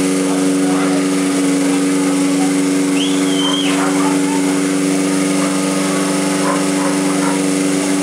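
Portable fire pump's small petrol engine running steadily at an even idle.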